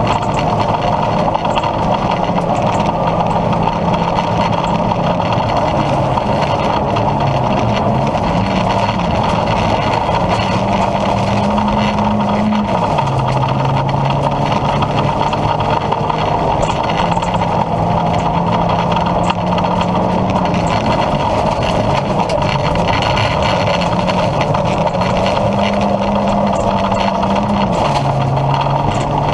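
Opel Astra G rally car's 1.6-litre engine heard from inside the cabin, driven hard through the gears: its note climbs and drops back again and again with the shifts, with a sharp drop a little before halfway and another near the end.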